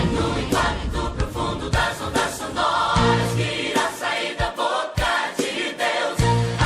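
Gospel song backing track with drums, bass and choir-style voices, the drums keeping a steady beat.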